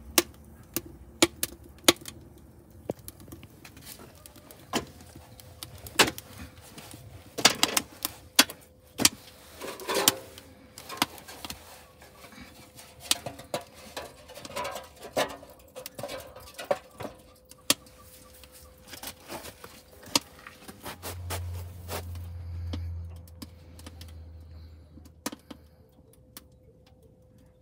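Wood fire crackling in a metal bucket under a smokehouse, with irregular sharp pops and snaps that come thickest in the middle. A short low rumble comes about three quarters of the way in.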